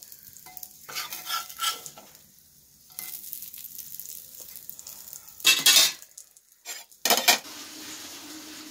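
A steel spatula scraping and knocking across a cast-iron tawa as roasted sardines are lifted off, with a faint sizzle of oil between strokes. The loudest scrapes come a little past halfway and about seven seconds in, and a low steady hum follows near the end.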